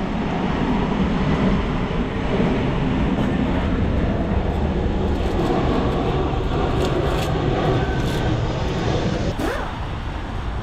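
A steady low rumble with hiss, like vehicle noise, holding level throughout.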